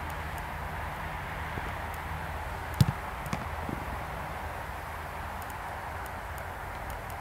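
Steady outdoor background noise with a low hum; about three seconds in, a single sharp thump of a football being struck, followed by two fainter knocks.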